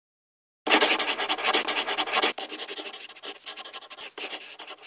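Sketching sound effect: quick scratching strokes on paper. They start about a second in, dense and loud at first, then lighter and more broken.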